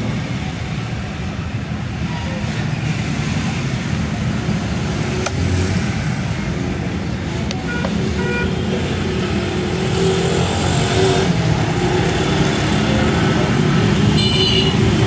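Steady low rumble of motor-vehicle traffic, growing louder from about ten seconds in, with a few light clicks over it.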